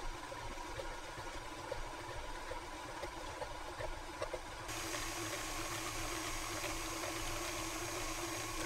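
Electric mixer running steadily, beating melted butter and sugar together, a little louder from about halfway through.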